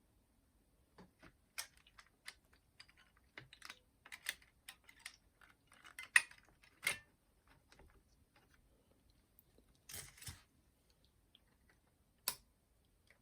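Irregular small clicks, taps and light knocks of hands handling small plastic and metal parts and tools while working on a boombox's cassette mechanism. The sharpest click comes about halfway through, with a brief scraping rattle a few seconds later.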